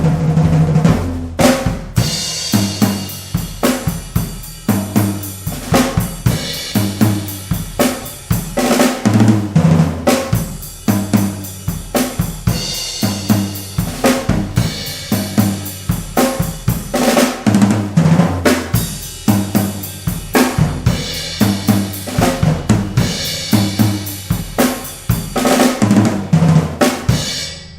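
1970s Pearl fiberglass drum kit played in a continuous groove: bass drum, snare, hi-hat and cymbals, with deep, ringing tom hits throughout. The playing stops and the kit rings out just before the end.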